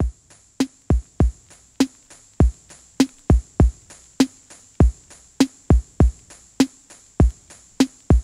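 Background music: a drum-machine beat that starts suddenly, with deep kick-drum hits, a snare or clap about every 1.2 seconds and a steady hi-hat hiss on top.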